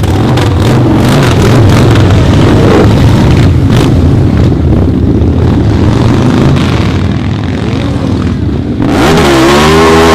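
Motorcycle engine running loud and rough, with scattered sharp pops. About nine seconds in, the revs climb steeply and hold high.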